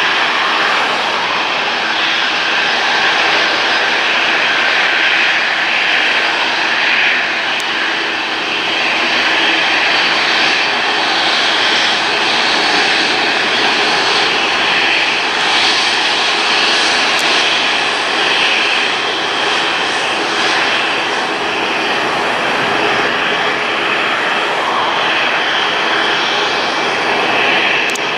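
Boeing 737-8-200 MAX jet with CFM LEAP-1B turbofan engines running steadily as it manoeuvres on the runway: an even engine noise with a faint underlying whine.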